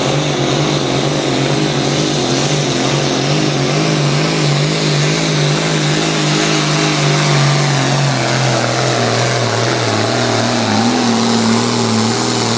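Pulling tractor's diesel engine running hard under full load down the pull track. Its pitch holds steady, then sags gradually through the second half as the engine is pulled down by the load.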